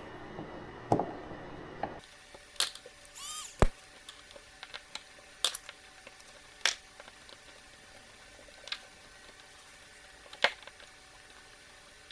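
Scattered sharp clicks and taps of hand tools on small machine screws, about seven spread out, with a brief squeak a little after three seconds.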